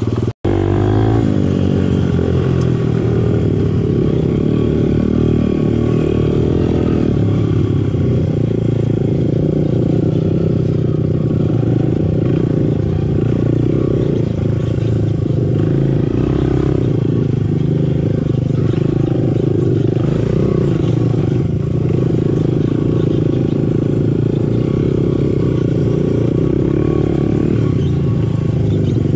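Honda CRF dirt bike's single-cylinder four-stroke engine running steadily as the bike rides along a rough dirt trail, with rattle from the bike over the ground. The sound cuts out for an instant just after the start.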